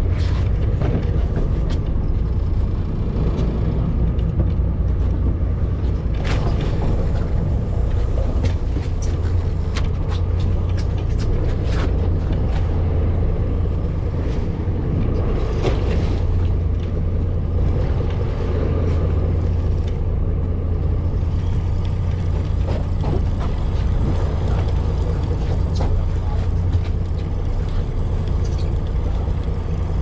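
Steady low rumble of a fishing boat's engine, mixed with wind and sea noise, with scattered short clicks.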